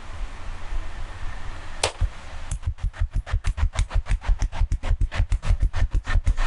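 One sharp crack, then from about two and a half seconds a fast, even run of hand strikes, about six or seven a second: the rapid chopping and slapping strokes of a barbershop head and back massage.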